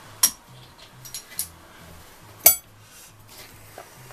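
Sharp metallic clinks from a Yamaha Thunderace engine, its cams and cam chain fitted, as it is turned over by hand: a loud one about a quarter second in, three lighter ones around a second in, and the loudest about two and a half seconds in.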